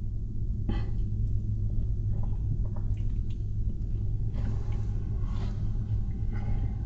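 Chewing of a bologna, egg and cheese sandwich on soft bread, with faint mouth clicks and smacks starting about a second in, over a steady low rumble in a car cabin.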